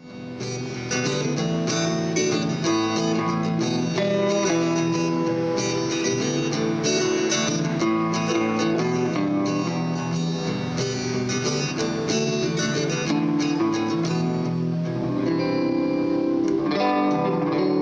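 Guitar strummed and picked in steady chords, a warm-up before a mic check.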